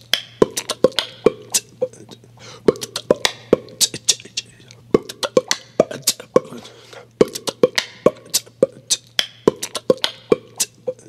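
Intro soundtrack of quick, uneven percussive clicks and hits, beatbox-like, over a low steady hum.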